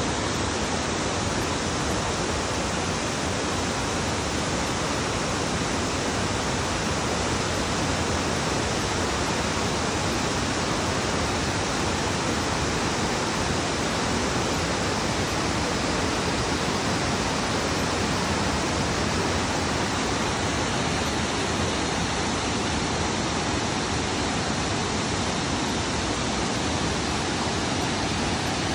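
Steady rush of river water pouring over and below a dam.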